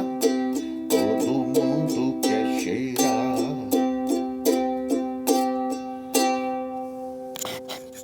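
Ukulele strummed in a slow closing pattern, the chords growing quieter, until a last chord about six seconds in rings out and fades. A few small clicks follow near the end.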